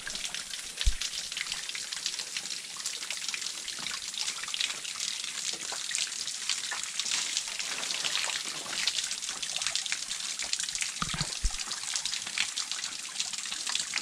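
Spring water trickling and splashing steadily, a dense patter of small splashes. A dull low thump sounds about a second in and again later on.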